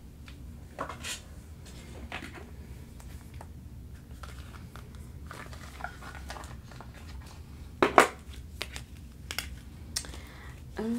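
Soft rustling and light clicking of a deck of oracle cards being handled while a card is drawn, with a sharper tap about eight seconds in.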